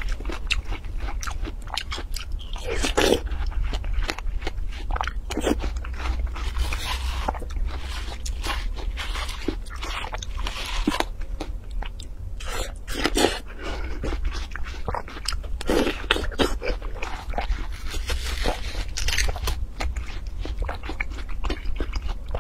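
Close-up biting and chewing of crisp, juicy watermelon flesh: wet crunching mouthfuls at irregular intervals. A metal spoon scoops and scrapes into the half melon between bites.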